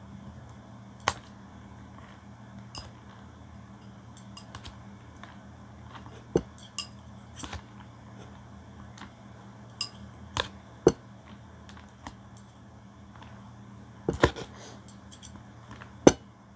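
Someone eating rice-vermicelli noodles with plastic chopsticks: scattered, irregular sharp clicks and taps, a few of them loud, over a steady low hum.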